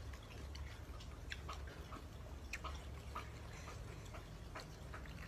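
A person chewing a mouthful of mango mixed with fermented fish sauce: irregular small wet clicks and smacks of the mouth, over a low steady hum.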